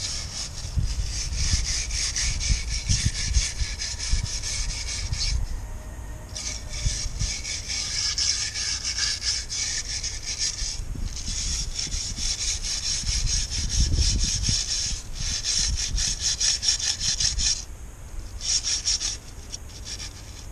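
A hand tool scraped rapidly back and forth along a metal strip, giving a dense rasping sound. It comes in runs, broken by short pauses about 6, 11, 15 and 18 seconds in, and is softer near the end.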